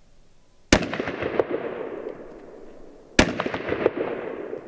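Two pistol shots fired one-handed, about two and a half seconds apart, each a sharp bang followed by echoes that fade over a second or so.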